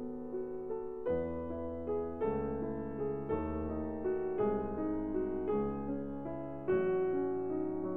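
Background piano music, slow and gentle, with a new chord struck about once a second.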